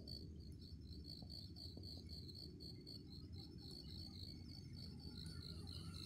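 Faint, steady insect chirping: a high pulsed note repeating about five times a second, over a low background rumble.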